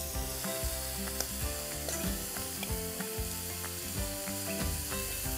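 Steady sizzle of beef tenderloin slices searing in a hot frying pan, with a few light clinks of a spoon on a plate. Soft background music with sustained notes plays under it.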